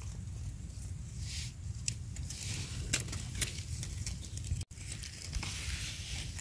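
Dry leaf litter rustling and crackling under hands digging into the forest floor, with the light scrape of a small knife cleaning soil off a mushroom's stem, over a low steady rumble. The sound cuts out briefly just past the middle.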